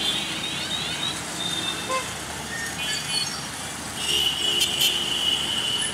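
Mixed road traffic crossing a level crossing: auto-rickshaws, motorcycles and cycle rickshaws running over the tracks. A high-pitched vehicle horn starts about four seconds in and is held through the end.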